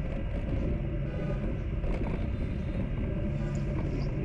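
Steady low rumble of a motorbike ride through town traffic: engine and road noise heard from the moving bike.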